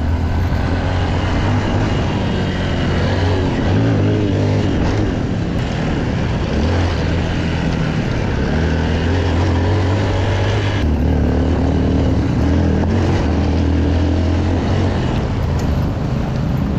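Small dual-sport motorcycle engine running at low speed on a dirt track, heard from on the bike, with tyre and wind noise over it. The engine note rises and falls with the throttle, and the hiss above it drops suddenly about two-thirds of the way through.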